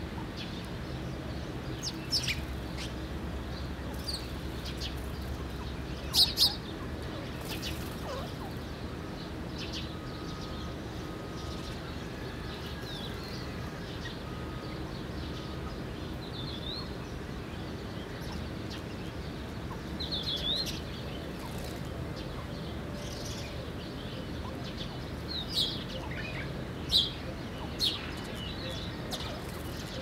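House sparrows chirping in short, scattered calls, the loudest a quick double chirp about six seconds in, over a steady low background noise.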